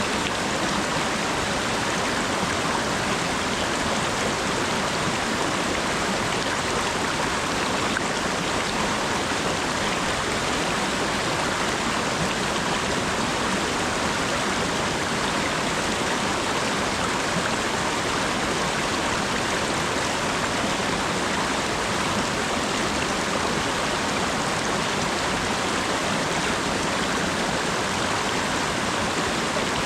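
Steady rainfall: an even, unbroken hiss of rain that does not change.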